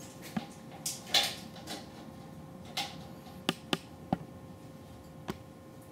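Vinyl siding panel and tools being handled on a saw table: scattered light clicks and knocks, the sharpest about a second in.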